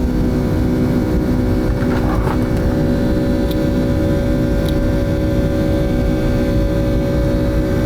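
Boeing 757-200 cabin noise: the jet engines running steady, a loud low rumble with a constant hum under it and two faint clicks midway.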